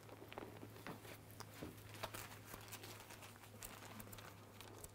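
Thin Bible pages rustling and crinkling as they are leafed through and turned, heard as faint, scattered little crackles and ticks, over a low steady hum.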